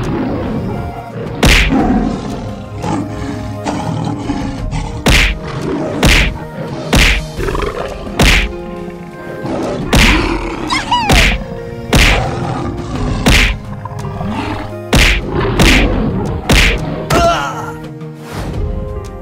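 Dramatic background music under a series of fight sound effects: more than a dozen heavy thuds and whacks landing roughly once a second, irregularly spaced.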